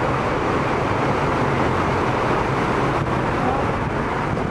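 Traffic driving slowly through floodwater on a road: engines running and tyres pushing through the water with a steady wash.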